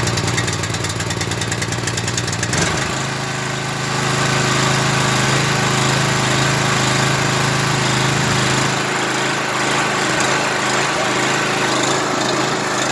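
Gas-engine pressure washer running. For the first two and a half seconds or so it has a fast, uneven pulsing, then it settles into a steady hum.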